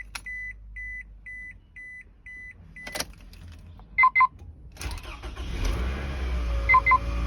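A car's warning chime beeps about twice a second, stops near the 3-second mark with a clunk, and two loud beeps follow about 4 s in. Then the 2006 Toyota Alphard's 2.4-litre inline-four engine cranks briefly and catches on a cold start about 5 s in, settling into a steady fast idle, with two more beeps near the end.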